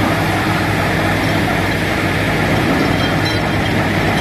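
Truck-mounted DTH (down-the-hole hammer) borewell rig drilling, its engine and air compressor running in a steady, loud mechanical din.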